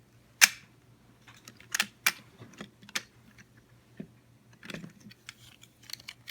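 Irregular clicks and taps of hard plastic being handled, from a toy train engine being turned over in the hands, with a few sharper clicks: the loudest about half a second in, others around two and three seconds.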